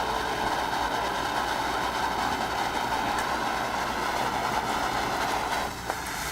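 Lit firework fountain spraying sparks with a steady hiss, which dies down near the end.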